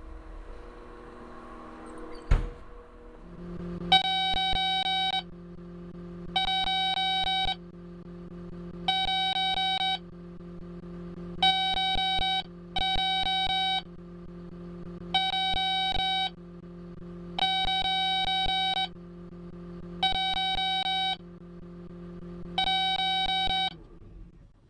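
Cat small wheel loader's in-cab warning alarm beeping: long electronic tones about every two seconds, starting about four seconds in, warning that the engine idle shutdown is pending. Under it the diesel engine idles steadily at about 800 rpm, with a single thump about two seconds in.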